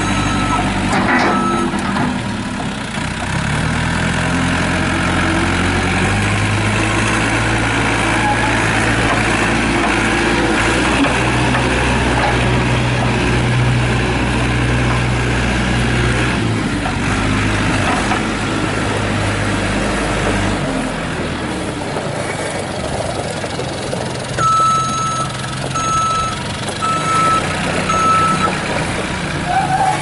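The four-cylinder Perkins diesel of a 1998 JCB 210S Series II backhoe loader running as the machine drives, revving up a few seconds in, holding and easing off about two-thirds through. Its reversing alarm beeps briefly at the start and four times, about a second apart, near the end.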